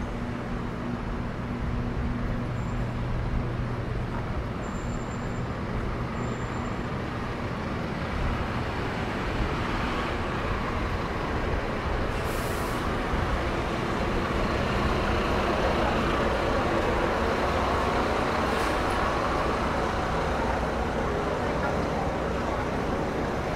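Road traffic: engines of passing vehicles, with a low engine hum in the first few seconds and the din growing louder in the second half. A short sharp hiss comes about halfway through, and a fainter one later.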